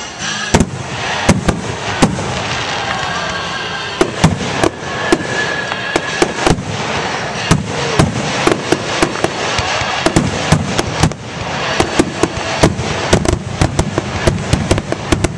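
Aerial fireworks shells bursting overhead: a long, irregular run of sharp bangs, one or two a second at first, coming faster after about twelve seconds.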